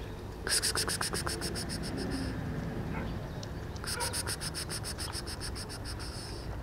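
A bird's high, rapid rattling call, given twice, each rattle lasting about two seconds.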